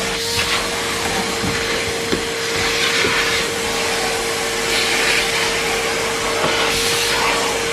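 Numatic Henry Pet tub vacuum cleaner running: a steady motor whine under a hiss of rushing air that swells and eases every second or two, with a few faint ticks.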